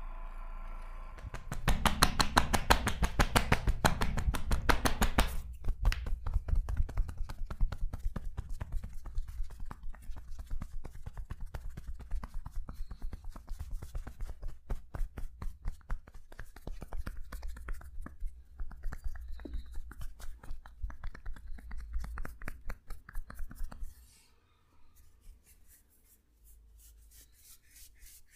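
Rapid, rhythmic strikes of hands on the body in percussive hacking (tapotement) massage. They are loudest for the first few seconds, carry on lighter, and fall to faint quick tapping near the end.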